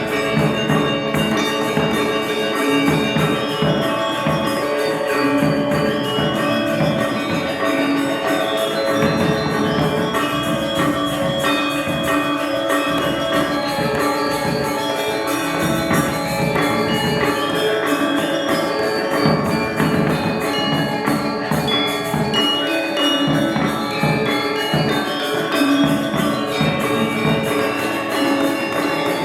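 Balinese gamelan gong ensemble playing a tabuh telu piece: many bronze metallophones and gongs ringing together in dense interlocking patterns over struck percussion, continuous and loud.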